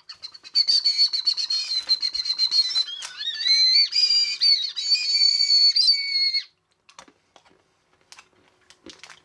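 Fue Ramune candy whistle blown: a high whistle that wavers and dips in pitch, with a lower second tone joining partway through, stopping about six and a half seconds in. A few faint clicks follow.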